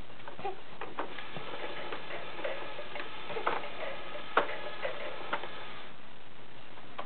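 Irregular plastic clicks and knocks from the hanging toys of a baby activity gym, set swinging by a kicking baby. A faint electronic tune from the gym's light-up toy bar plays under the clicks and cuts off suddenly about six seconds in.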